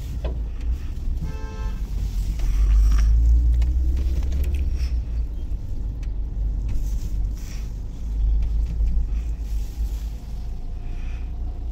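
Low rumble of engine and road noise inside a car's cabin as it creeps forward, with a short horn toot about a second in.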